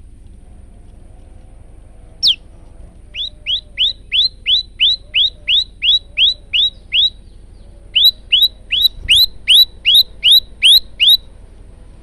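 Male prenjak lumut singing: a single sharp falling note, then two runs of rapid, identical downslurred chirps, about three a second. The second run is louder.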